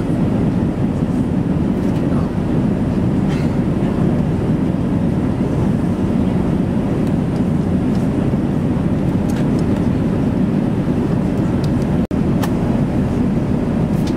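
Steady airliner cabin noise of an Airbus A380 in cruise flight: engine and airflow noise sitting low and even, with a few faint clicks. The sound cuts out for an instant about twelve seconds in.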